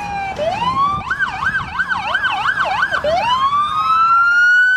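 Several American police-car sirens sounding together: a slow rising wail, then a fast yelp of about three sweeps a second, then another wail climbing and holding high near the end.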